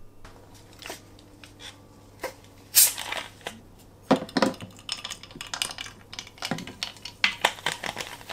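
Plastic bottle of sparkling water opened with a short sharp hiss about three seconds in, then poured over ice into a glass: splashing, fizzing and a run of small clicks and crackles from the ice and the bottle.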